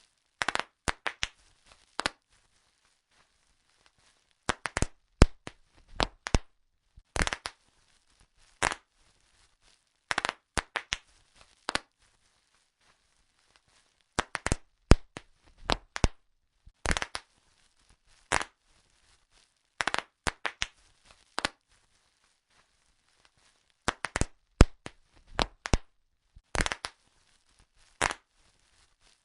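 Bubble wrap being popped: sharp single pops, often two to five in quick succession, in irregular clusters separated by pauses of a second or two.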